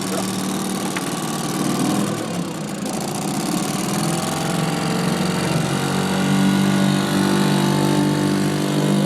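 3-horsepower British Seagull Forty Plus Mark II single-cylinder two-stroke outboard motor running steadily just after being pull-started, getting louder about two-thirds of the way through.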